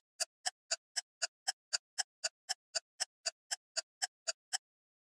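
Ticking sound effect: short, sharp, even ticks at about four a second, stopping shortly before the end.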